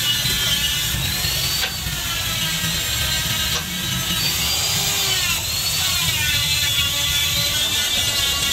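Electric die grinder running with a rotary burr cutting into a bolt hole in a tractor gearbox housing, its motor whine dipping in pitch and recovering each time the burr bites, about a second and a half and three and a half seconds in.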